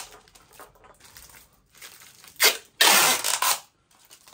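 Clear adhesive tape pulled off its roll: a short ripping noise about halfway through, then a longer one lasting nearly a second.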